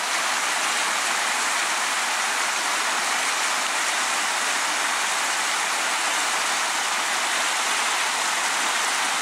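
Fast mountain stream rushing over rocks: a steady, even rush of water that does not change.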